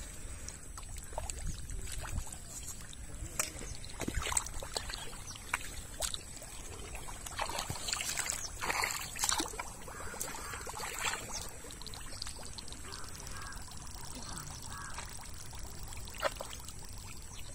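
Hands splashing and sloshing in shallow muddy water while feeling through the mud for fish, with water dripping and trickling. The small splashes come irregularly and are busiest around the middle.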